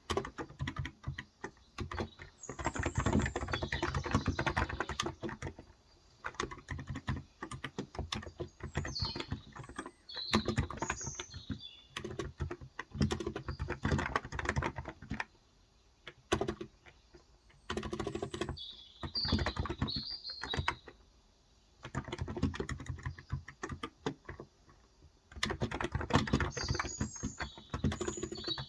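Fast typing in bursts, with brief pauses, on a Cox Endeavour electrostatic capacitive tenkeyless keyboard with 35 g switches. Birds chirp now and then in short high phrases.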